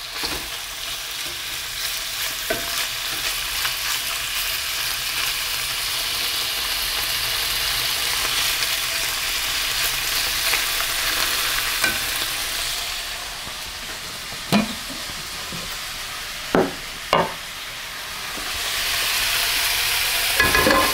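Cubes of skirt steak sizzling as they brown in hot oil in a frying pan, turned with a slotted spatula that scrapes against the pan. There are a few sharp knocks in the second half.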